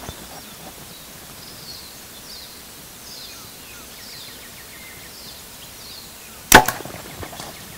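A bow shot about six and a half seconds in: the string released with one sharp, loud crack and a quick second crack right after it, as the arrow is loosed.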